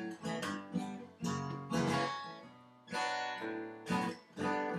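Acoustic guitar played with no singing: chords strummed several times, each left to ring and fade before the next.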